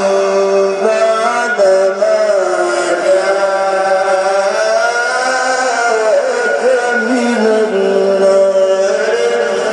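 A male Quran reciter chanting in the melodic Egyptian mujawwad style, drawing out a long ornamented phrase whose pitch slides up and down between held notes.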